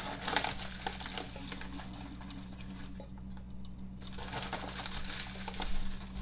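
Paper bag of biscuit mix rustling and crinkling as a measuring cup scoops dry mix out of it, busiest about a second in and again near the end.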